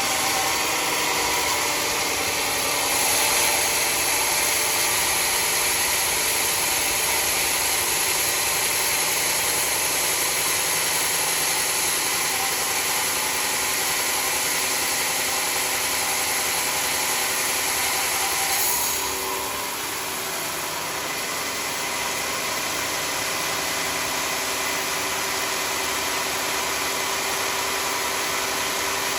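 Sawmill running steadily, with a high hiss over its engine note; about two-thirds of the way through the hiss stops and the sound becomes slightly quieter.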